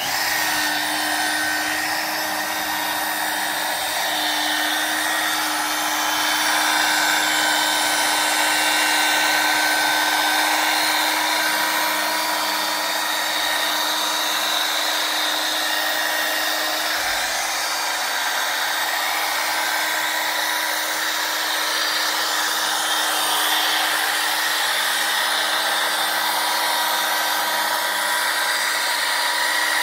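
Polishing machine running steadily with a felt pad and glass polishing paste pressed against a car's rear window, cutting out sandpaper scratches: a constant whirring hum with one steady tone.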